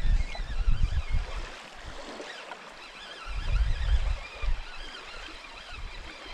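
Wind buffeting the microphone in two gusts, one at the start and one about three seconds in, over the wash of waves on the shore.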